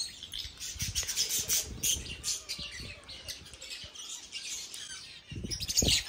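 Small parrots in an aviary chirping and squawking, a busy run of short high calls. A few low thumps come near the end.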